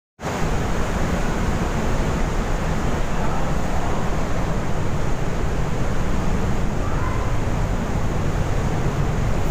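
Loud, steady rush of glacier-fed waterfall water pouring through a rock gorge inside the mountain, cutting in suddenly just after the start.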